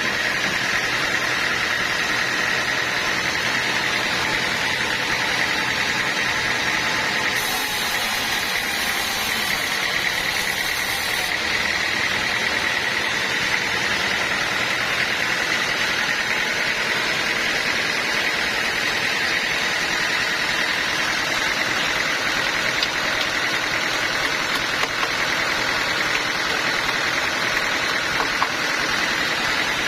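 Sawmill saw running steadily, a constant high whine over loud machine noise.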